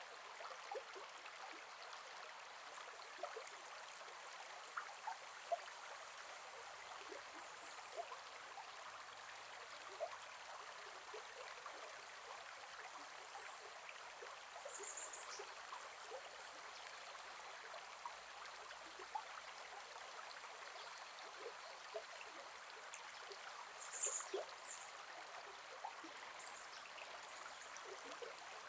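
Gentle forest river flowing and babbling: a steady wash of water with many small drips and splashes over it.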